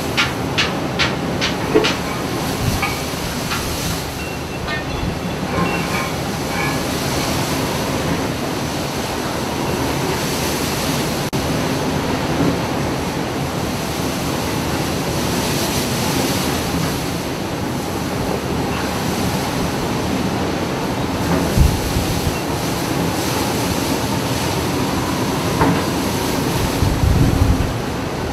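Steady rumbling storm noise at sea: wind and waves together with a vessel's rumble. A quick run of sharp clicks or rattles in the first two seconds, and a few heavy low thumps near the end.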